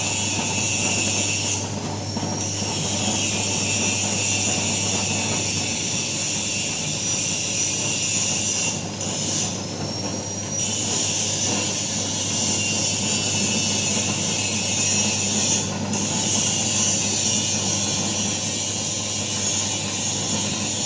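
Motor-driven taro slicing machine running steadily with a low hum and a high, hissing whir; the whir drops away briefly about two seconds in, twice around nine to ten seconds, and again near sixteen seconds.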